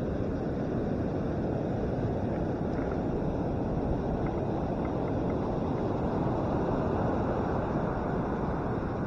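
Steady wind noise rumbling on a handlebar-mounted camera's microphone as a bicycle rides along the beach, with breaking surf mixed in.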